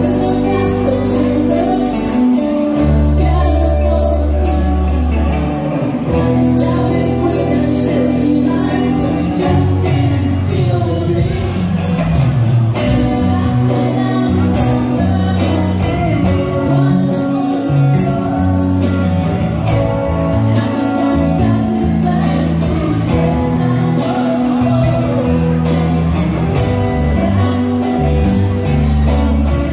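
Live rock band playing a song on drums, bass guitar, electric guitars and keyboard, with a steady drum beat.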